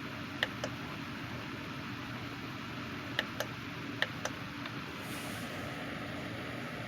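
Sunbeam SFH 442 fan-forced space heater's fan running steadily, with three pairs of short sharp clicks from its thermostat control as the temperature setting is changed.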